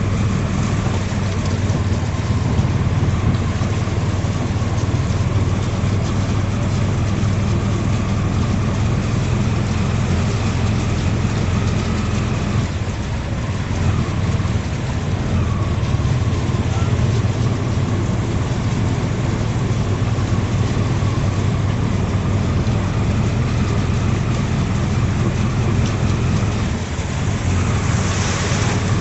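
Three-wheeled auto-rickshaw's small engine running steadily while it drives through floodwater, heard from inside the open cab. Near the end there is a brief rush of water as another three-wheeler passes close alongside.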